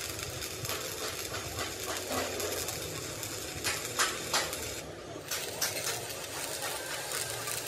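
Sharp knocks over a steady background hum and hiss: three in quick succession a little before halfway, then three more about a second later.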